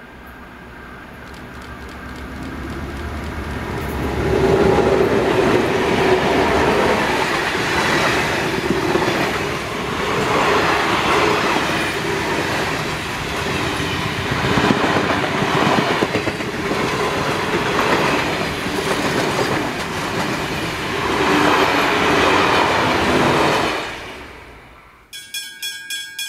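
Southern Aurora heritage train passing close by behind diesel locomotive S303 and two more diesels: the locomotives' engine noise grows over the first few seconds, then the ex-Southern Aurora carriages' wheels clatter over the rail joints in a repeating rhythm. The sound cuts off suddenly near the end.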